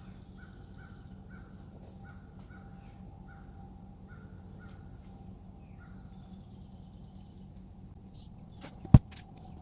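A bird calling, one short note repeated every half second to a second, over a faint steady hum. About nine seconds in, a single sharp knock.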